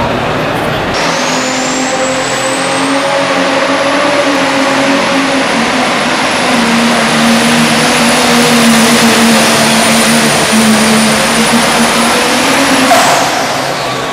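Pro Stock pulling tractor's turbocharged diesel engine at full power dragging a weight-transfer sled. A high turbo whine climbs over the first couple of seconds and then holds steady. Near the end it falls away as the pull finishes.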